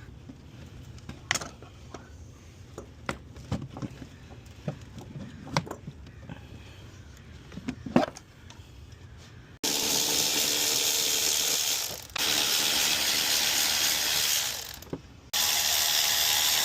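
Scattered clicks and knocks of tools and car parts being handled, then a ratchet wrench being worked in three loud runs of about two and a half seconds each, starting and stopping abruptly, as fasteners are loosened to remove a part.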